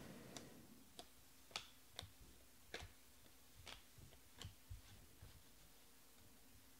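Faint, sharp clicks of glossy trading cards being flicked through in the hand and set down on piles, about one every half second.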